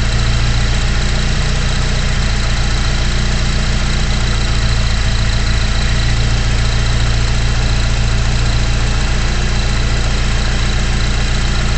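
Turbocharged car engine idling steadily, with a thin high tone held over the engine note; the turbo is bad, something very wrong with it.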